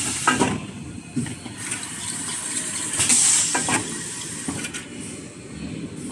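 Automatic kitchen towel paper rewinding machine running: a steady hiss with scattered knocks, and a louder hiss about three seconds in.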